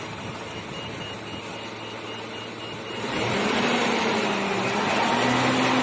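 Car engine idling, then about three seconds in the throttle is opened and held at a higher, steady speed, to lift the charging voltage after the battery sagged to 9.7 V under the heavy load of a 2200 W kettle running through an inverter. A faint, rapid high-pitched beeping during the idle stops as the revs rise.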